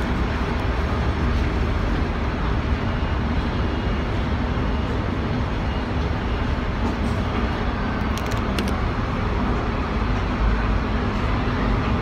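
Steady city traffic noise at a busy road junction, heard from a tram standing at a red light, with a few faint clicks about eight seconds in.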